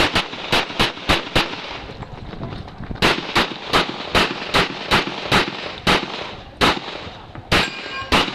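Gunshots fired in rapid strings: about six quick shots roughly three a second, a pause of about a second and a half, then about a dozen more at a slightly uneven pace.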